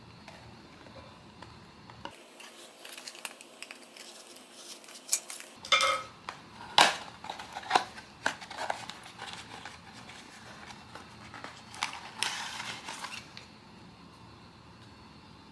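Hands handling blind-box packaging and cards: a run of small hard clicks and taps between about five and nine seconds in, then a short crinkling rustle a little after twelve seconds.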